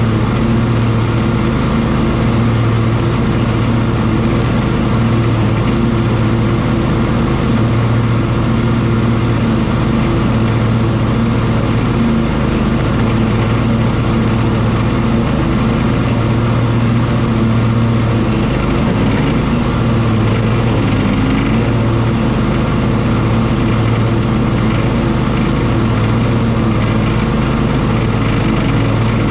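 Cub Cadet XT1 ST54 riding lawn mower running steadily, its engine hum and blades working through tall, thick grass and weeds.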